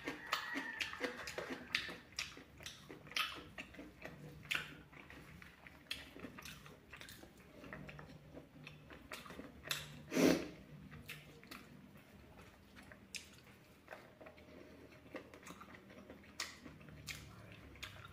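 Close-up eating of fried pork: chewing and biting, with irregular wet mouth clicks and smacks. One louder mouth sound comes about ten seconds in.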